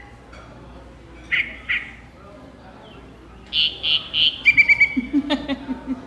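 Recorded song of a yellow-breasted chat, played from a small handheld bird-song player held to a microphone. It is a string of separate whistled and chucking notes, then a quick rattling run of notes about four and a half seconds in.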